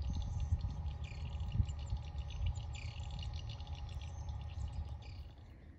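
Outdoor rural ambience: birds chirping faintly and intermittently over a steady low rumble on the microphone.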